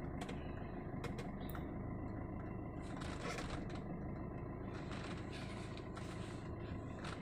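Suzuki car engine heard from inside the cabin, running steadily at low revs as the car pulls away slowly in first gear with the clutch being let out.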